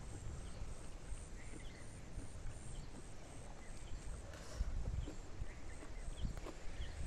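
Eating sounds: chewing and soft mouth clicks from someone eating with her fingers, over a steady low rumble and a faint high chirp repeating about twice a second.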